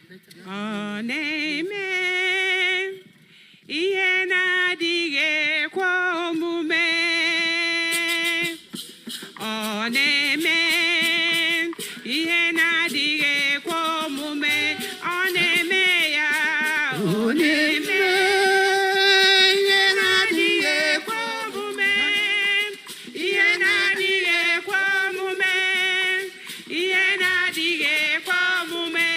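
A solo voice singing a melody in long, wavering held notes, with little or no accompaniment.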